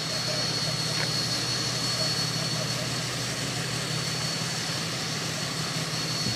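Steady mechanical hum with a thin, high, constant whine over it.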